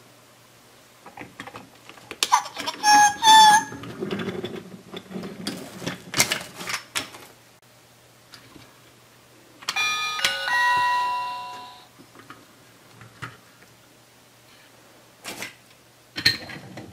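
Chuggington wooden crossing platform's battery sound unit playing a short electronic sound, followed by clicks and clatter as its plastic barrier gates are pushed. About ten seconds in, a bell-like electronic chime rings out and fades over about two seconds.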